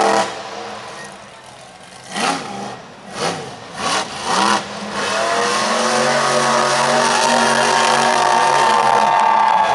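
Monster truck engine revving in short blips three or four times, then held at high revs for about five seconds.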